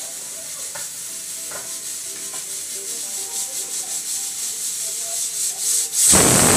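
Pressure cooker on a gas burner hissing with escaping steam, growing louder and sputtering, then letting out a loud whistle blast about six seconds in that cuts off suddenly.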